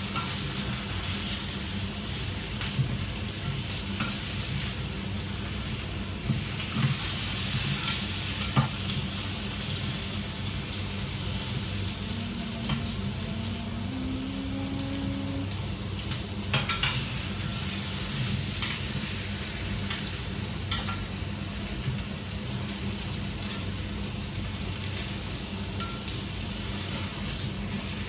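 Chicken wings sizzling as they fry and brown in a pan, stirred with a metal utensil that scrapes and clicks against the pan now and then.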